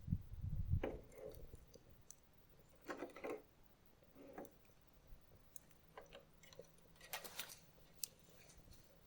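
Light metallic clicks and scrapes of restored wire cutters being handled and worked, a few separate ones spread over several seconds, the strongest about three seconds and seven seconds in.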